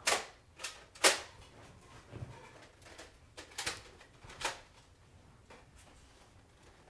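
A handful of sharp, irregular clicks and knocks, the loudest about a second in, with a few more near the middle.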